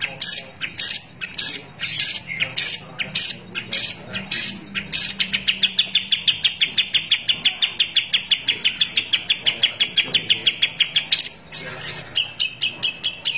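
Caged long-tailed shrike singing: loud harsh notes a little over half a second apart, then a fast, even chatter of about eight notes a second for some six seconds. After a brief break the chatter starts again near the end.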